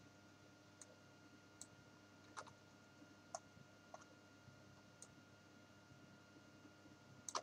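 Faint, irregular clicks of a computer mouse, about seven of them, the loudest near the end, over near silence.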